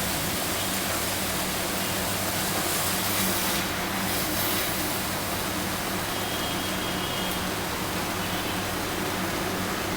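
Gas stove burner flame giving a steady rushing hiss with a faint low hum, while chicken breast chars directly on the open flame.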